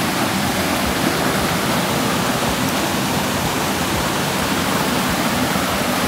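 Small waterfall pouring over a concrete weir into a pool: a steady, loud rush of falling water.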